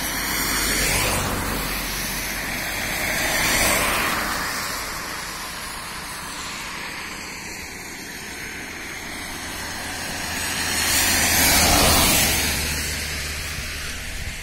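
Vehicles passing one after another on a wet asphalt road, with tyre hiss on the wet surface swelling up and fading away three times. The third pass, near the end, is the loudest.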